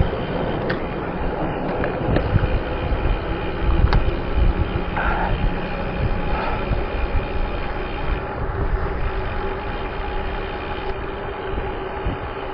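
Steady road-traffic noise heard from a bicycle on a highway: motor vehicles running and tyres on asphalt, with a few faint clicks.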